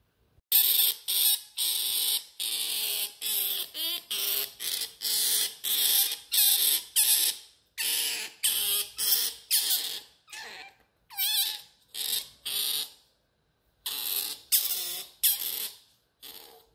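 Otter pup calling in a rapid series of high-pitched squeals, each under half a second long, with a few short breaks. Some calls waver in pitch, and the series starts about half a second in.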